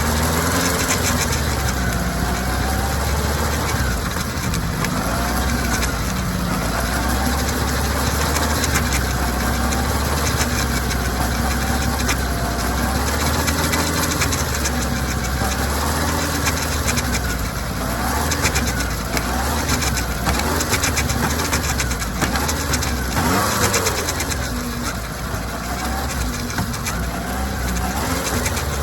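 Kawasaki ZR-7S air-cooled inline-four engine running, its pitch rising and falling again and again over a steady low hum.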